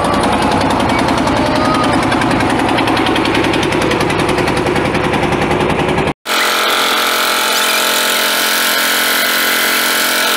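Engine of a wooden river boat running steadily with a rapid, even knocking beat. About six seconds in the sound cuts out for an instant, then comes back without its low thud, as a higher, steadier buzz.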